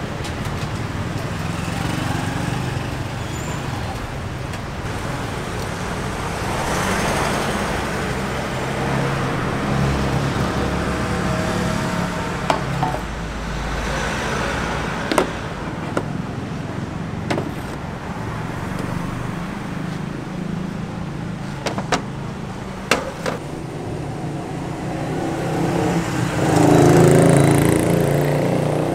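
Road traffic: vehicle engines running and passing, one growing louder near the end, with a few sharp knocks in between.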